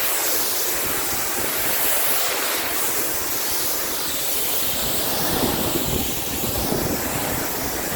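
Pressure washer jet spraying water onto paving and fence, a steady loud hiss.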